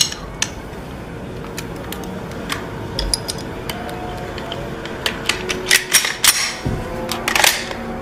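Metal clicks and clacks of a semi-automatic pistol's parts being handled and fitted together, thickening into a quick run of louder clacks in the second half, over a low steady hum.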